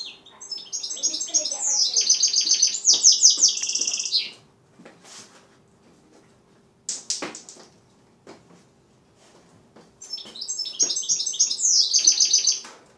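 Six-month-old goldfinch mule (goldfinch × canary hybrid) singing. There are two long phrases of rapid, repeated high trilled notes, the first about four seconds long and the second about three, with a short sharp call between them.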